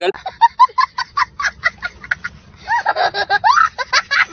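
A person laughing in quick bursts, about four or five a second, then several voices talking and laughing at once from a little past halfway.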